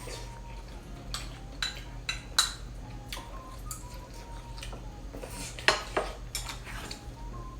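Eating utensils clinking and tapping against a bowl, a series of sharp irregular clicks with two louder knocks.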